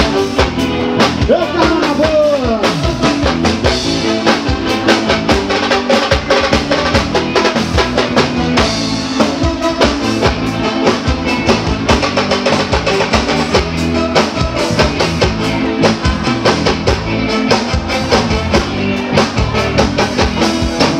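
Loud live band music: a drum kit keeps a steady driving beat under other instruments while a voice sings.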